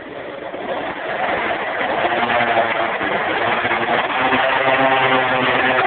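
Piaggio scooter engine running under throttle as the scooter rides up close, growing louder over the first two seconds and holding a steady buzzing pitch after that, echoing off the concrete of an underground car park.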